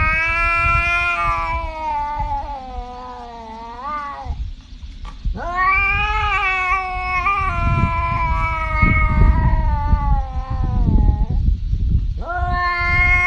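Tabby cat yowling in long, drawn-out calls. There are two calls of about four and six seconds, each sliding slowly down in pitch, and a third starts near the end.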